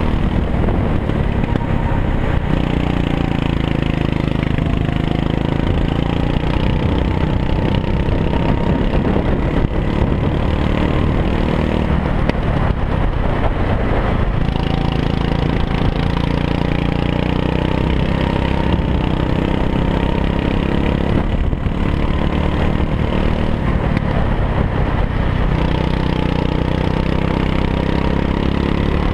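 Go-kart engine running hard under the driver, heard from on board: its pitch climbs along the straights and falls back briefly as the kart slows for corners, twice.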